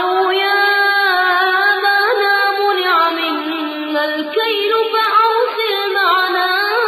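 A man's voice reciting the Quran in melodic tajweed style, drawing out one long ornamented phrase that bends up and down in pitch without a break.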